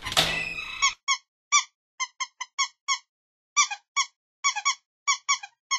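Rubber duck squeaking: about twenty short, quick squeaks at an uneven pace, after a brief rough burst of noise at the start.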